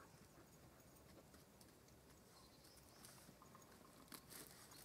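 Near silence, with a few faint light clicks and rustles over the last second and a half.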